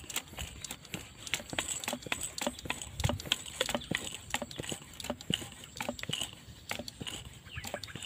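A hand-held homemade tube-and-rod animal caller worked by hand, giving rapid irregular clicks mixed with short squeaky chirps, over a steady high insect drone.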